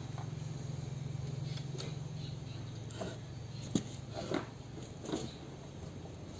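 A spanner clinks against the bolts of a truck differential's drive pinion housing as they are tightened: a few sharp metallic ticks starting about three seconds in, over a steady low hum.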